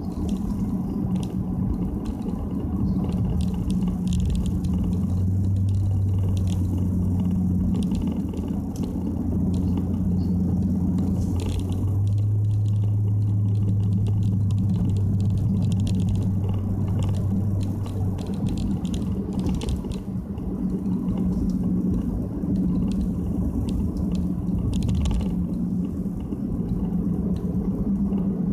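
Inside the cabin of a Nissan Fuga 350GT on the move: the 3.5-litre V6 and its one-off quad-exit exhaust give a steady low drone, with road noise and light ticks and rattles. The owner thinks a slight abnormal noise may be mixed in, but finds it hard to tell apart from the exhaust sound.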